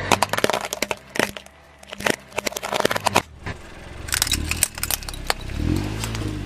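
Dozens of sharp cracks and snaps in quick clusters as a car tyre rolls over and crushes pop-pop snap firecrackers. A low hum rises and falls near the end.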